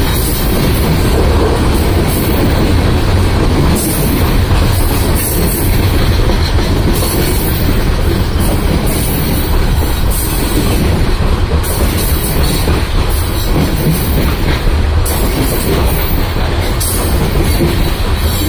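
Open-top coal cars of a Union Pacific coal train rolling steadily past, a continuous rumble of steel wheels on the rails.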